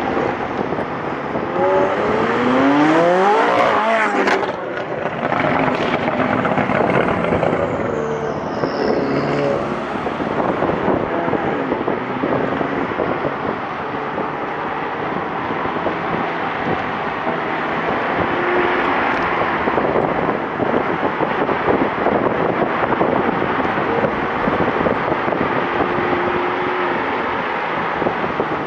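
McLaren's twin-turbocharged V8 accelerating hard, its pitch climbing steeply about two to four seconds in, then running on at speed in a steady drone.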